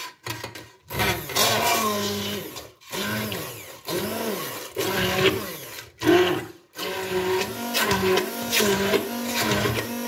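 Hand-held immersion (stick) blender running in bursts through boiled potato and carrot chunks in a stainless steel pot, its motor pitch dipping and recovering again and again. It starts about a second in and stops briefly twice, near three seconds and near seven.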